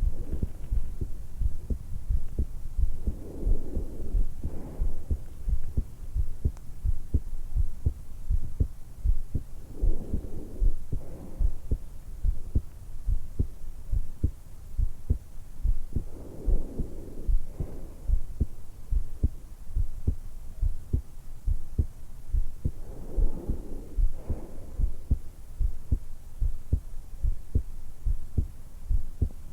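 A person's heartbeat and breathing picked up by a stethoscope microphone pressed to the hollow at the base of the throat, just after waking and lying on her back: a steady run of low, evenly spaced thumps, with a slow breath in and out about every six and a half seconds.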